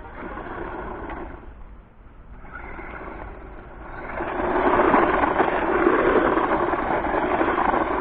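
A 1/12-scale 4WD RC buggy's 390 electric motor and drivetrain whirring under throttle in short bursts as it drives. From about four seconds in it runs louder and steadier.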